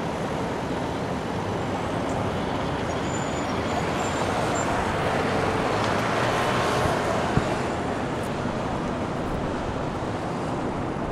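Dense city road traffic: a steady wash of car engines and tyre noise, with a single short click about seven seconds in.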